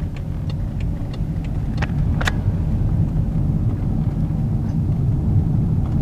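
Steady road and engine rumble heard from inside a moving car's cabin, with a few short clicks, the sharpest about two seconds in.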